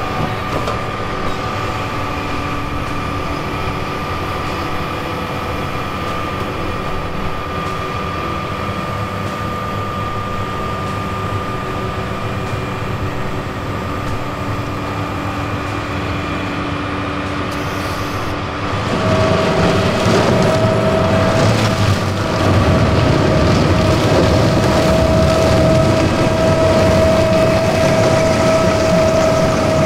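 Heavy harvest machinery running steadily, with a constant whine over a low rumble. About two-thirds of the way through it grows louder and a stronger, higher whine sets in and holds.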